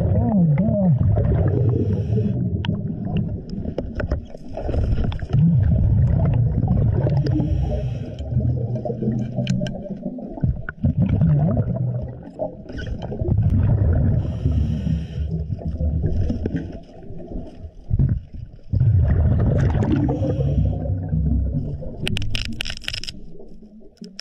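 A scuba diver breathing through a regulator underwater: long stretches of bubbling exhaled air alternate with shorter hissing inhalations, about five breaths in all.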